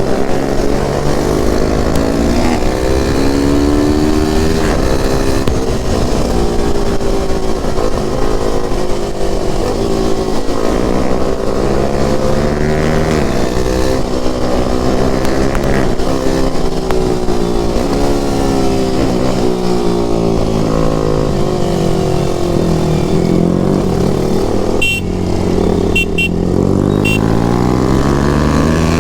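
KTM RC 390's single-cylinder engine being ridden hard, its pitch rising and falling again and again as it revs up through the gears and eases off. The pitch dips low about three-quarters of the way through and climbs again near the end.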